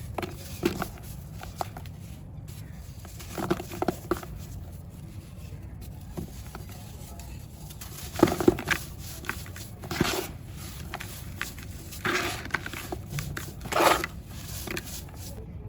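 Dry, crumbly clumps being crushed and broken apart, giving irregular bursts of crunching and crackling, a handful of separate crumbles with the loudest about halfway through and near the end. A steady low hum runs underneath.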